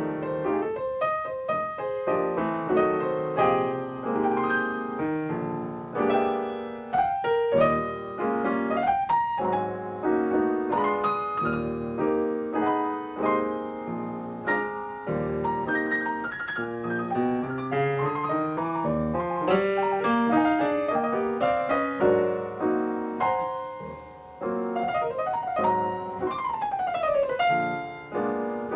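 Background music: solo jazz piano played at a lively pace, with quick runs and a fast falling run down the keyboard near the end.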